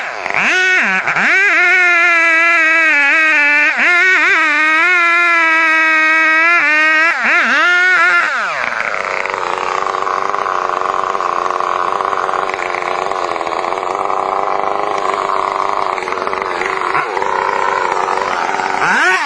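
Chainsaw running at high revs, its note dipping and climbing back several times as the throttle is eased and opened. About eight and a half seconds in the pitch drops and the sound turns rougher and noisier, as when the chain is under load in the wood.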